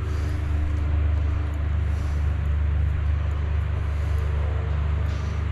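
Steady low hum and rumble, unchanging throughout.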